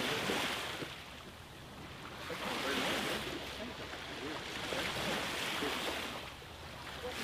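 Small waves washing up on a sandy shore, rising and falling in surges every few seconds.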